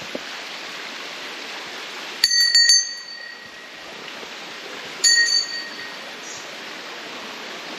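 Small metal bell, likely a hanging temple bell, struck several times in quick succession about two seconds in and again about five seconds in, each time ringing out for about a second, over a steady rush of flowing water.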